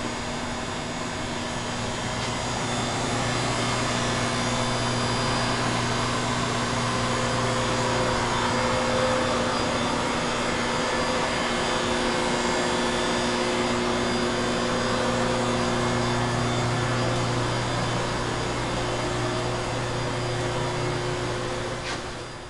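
Steady drone of a motor-driven machine with a low hum under a noisy whir. It falls away near the end.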